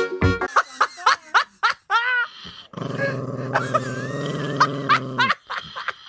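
An English bulldog whines in a few short cries that rise and fall in pitch. Then a chihuahua growls steadily for about two and a half seconds, teeth bared.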